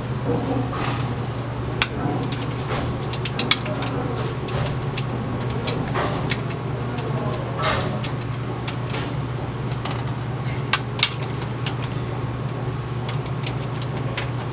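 Scattered metallic clinks and taps of hand tools and parts during pin cup replacement on a bowling pinsetter, over a steady low machinery hum.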